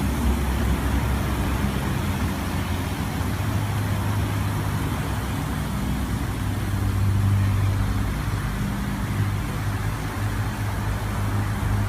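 Spinning-disc fog humidifiers running together: a steady low motor hum with an even hiss of spray.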